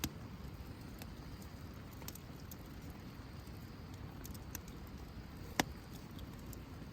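Wood campfire burning: a low steady rumble with scattered sharp crackles and pops, the loudest about five and a half seconds in.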